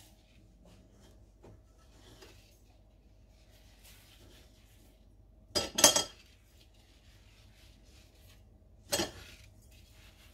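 Kitchenware clinking on a stone countertop: a quick cluster of sharp clinks about six seconds in and a single knock about nine seconds in, with faint rubbing and handling of cinnamon sugar over dough in between.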